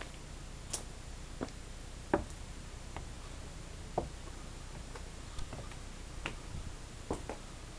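Footsteps on a porch deck: irregular short knocks, about one a second, over a faint low background rumble.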